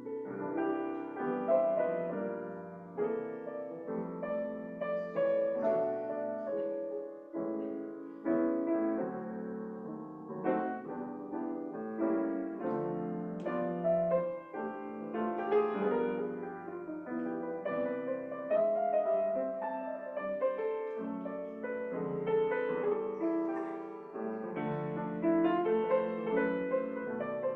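Solo piano playing offertory music during the collection, with many notes sounding together and changing continually.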